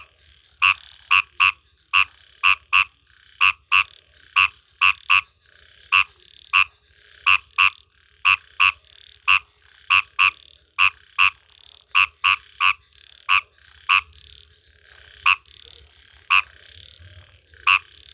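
Frogs croaking: loud, short, sharp croaks repeated under two a second, often in pairs, over a fainter chorus of other frogs calling.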